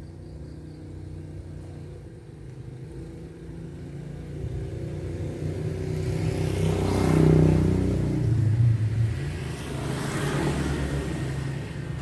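A motor vehicle engine running nearby, a low rumble that grows louder and shifts in pitch about seven seconds in, then eases off.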